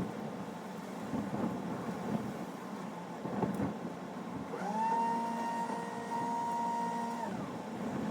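An engine revs up about halfway through, holds a steady pitch for roughly two and a half seconds, then drops back, over a background of rough rumbling noise.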